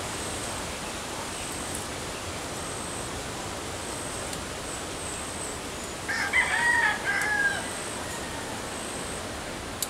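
Rooster crowing once, a pitched call of about a second and a half starting about six seconds in, over a steady outdoor hiss.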